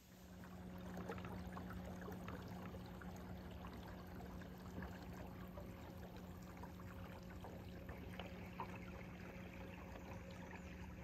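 A small boat motor running steadily at one pitch, with water trickling and lapping against the hull.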